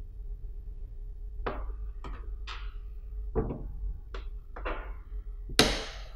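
Several light knocks and clinks of metal parts being handled on a tabletop, then near the end a sharp click, the loudest sound, as the steel armature plate snaps onto the electromagnetic door lock. Only once it clicks is the plate held.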